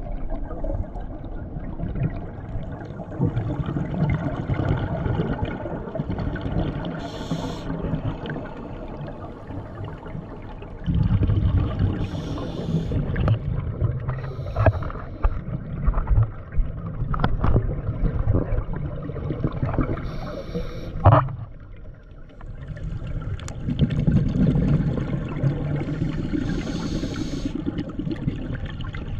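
Water sounds with a low rumble that swells and fades, and scattered clicks and knocks, the sharpest about two-thirds of the way through.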